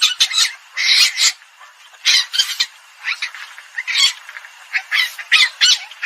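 Palm civet calls played as a hunting decoy recording: short, shrill calls repeated in quick clusters, several a second.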